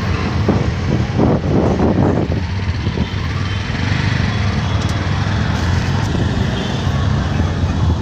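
Steady low drone of an auto-rickshaw's small engine running in slow city traffic, heard from aboard the rickshaw, with general road-traffic noise around it.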